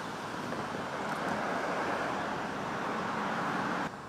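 Steady hiss of road traffic. It drops suddenly near the end to a quieter traffic hum.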